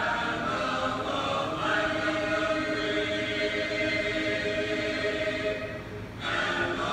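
A woman singing the national anthem unaccompanied, holding long sustained notes, with a short break for breath about six seconds in before the next note.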